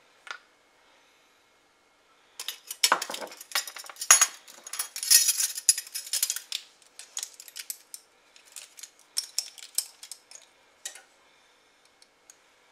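Glass spice jar of nutmeg being opened and handled: irregular clinks and rattles of the jar and its lid, densest in the middle and thinning out near the end.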